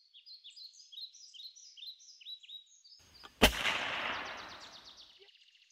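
Birds chirping in quick, repeated high calls, then a single loud gunshot about three and a half seconds in that echoes and fades over the next two seconds.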